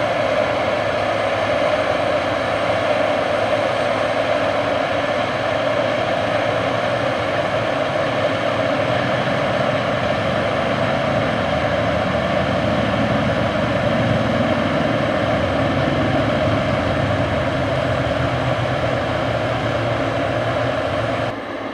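Heavy farm machinery running steadily at working load, a continuous engine and machine drone, dropping abruptly to a quieter sound near the end.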